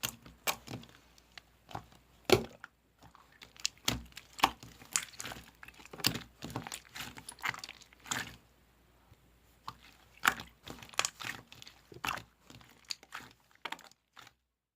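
Clear slime being squished, pressed and stretched by hand, making irregular sticky clicks and small pops, with short pauses between handfuls. It stops just before the end.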